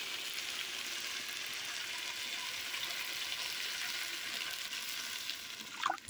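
Potatoes and spice masala in hot oil sizzling in a wok as water is poured in, a steady hiss that dies away just before the end.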